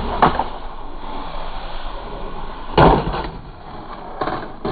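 Skateboard on concrete: a sharp clack of the board about a quarter second in, then the loudest hit near three seconds in as the board and wheels slam down on the concrete in a landing, followed by the wheels rolling and a couple of lighter clacks.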